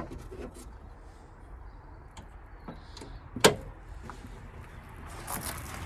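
A single sharp knock about three and a half seconds in, amid quieter handling and rustling noises that grow near the end.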